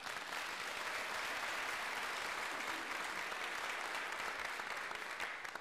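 An audience applauding: many people clapping together in a dense, steady patter that starts suddenly and begins to die away near the end.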